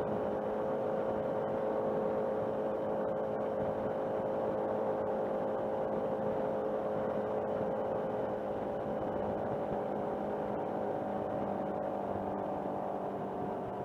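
Motorcycle engine running steadily at cruising speed, a constant drone whose pitch eases slightly lower in the second half.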